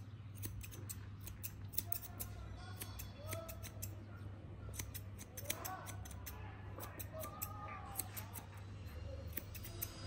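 Grooming scissors snipping the fur around a long-haired cat's paw: quick crisp cuts, several a second, in an irregular run over a steady low hum. A few faint short calls come around the middle.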